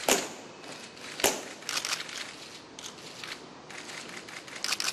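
Press camera shutters clicking, single shots and rapid bursts, over a faint room hiss.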